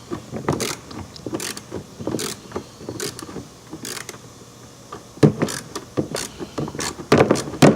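3/8-inch hand ratchet with a T30 Torx socket on an extension, clicking in irregular strokes as it backs out the fasteners of a truck's cab air filter cover. A few louder knocks about five seconds in and near the end.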